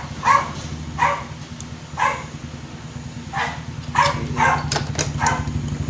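A dog barking repeatedly, short barks roughly once a second, over a steady low hum.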